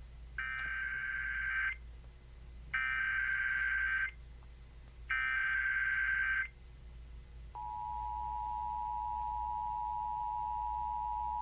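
Emergency Alert System tones: three short, identical bursts of SAME digital header data, each about a second and a half long, marking the start of a new alert. About seven and a half seconds in, the steady two-tone EAS attention signal (853 and 960 Hz) begins and holds.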